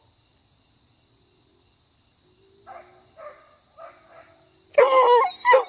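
Hunting dog barking on an armadillo's trail: four short, faint barks about halfway through, then louder, drawn-out baying near the end.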